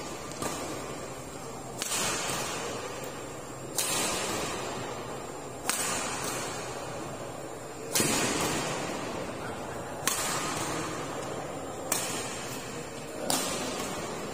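Badminton racket strings striking a shuttlecock in a rally: about seven sharp hits roughly two seconds apart, each ringing out with the echo of a large indoor hall.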